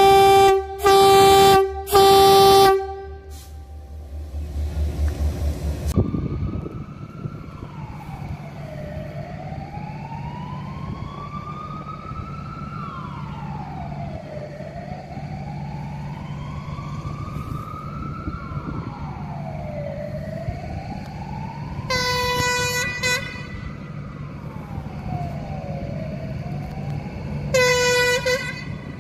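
A locomotive horn sounds three times in quick succession over a deep diesel engine rumble. Then a siren wails slowly up and down over a steady diesel hum. Near the end a diesel shunting locomotive gives two short horn blasts, a few seconds apart.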